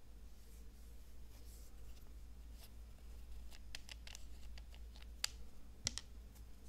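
Faint handling of a plastic hand-cream tube, its screw cap twisted off: soft rustling and a string of small plastic clicks, with two sharper clicks near the end.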